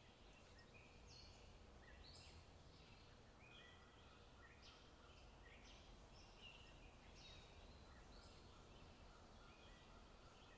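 Faint forest birdsong: several small birds giving short chirps and trills that overlap throughout, over a low, steady rumble.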